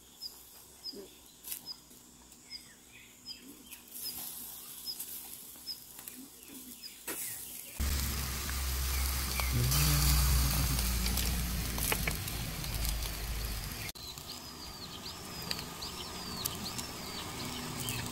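Birds chirping: a quick, high chirp repeated over and over in the first half, and later a bird repeating a rising-and-falling call about twice a second. About halfway through, a low rumble comes in suddenly and stops just as suddenly some six seconds later.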